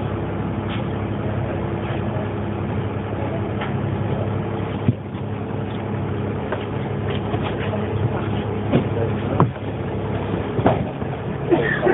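1998 Dennis Dart single-deck bus running with a steady engine drone, with a few sharp knocks or rattles over it.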